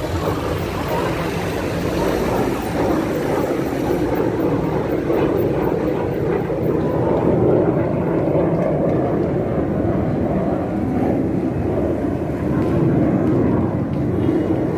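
Sri Lanka Air Force military aircraft flying over in an air-show fly-past: a steady engine noise that grows a little louder about halfway through.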